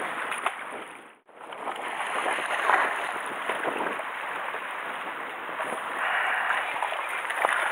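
Sea water washing and splashing against shoreline rocks, a steady rushing noise that cuts out briefly about a second in.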